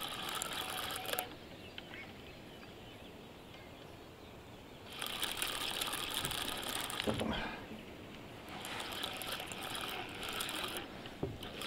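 Fishing reel whirring with a ratcheting buzz in three spells of one to two and a half seconds, with quiet gaps between, as a hooked fish is played.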